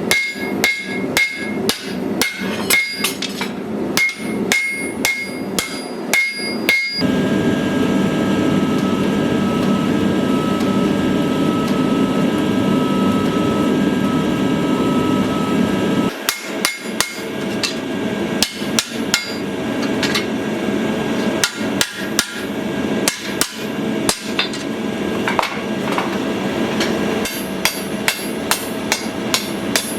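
Hammer blows forging a steel sword blade, several a second, with a ringing note on many strikes. About seven seconds in the hammering stops and a steady rushing noise takes over for about nine seconds, then the hammering resumes.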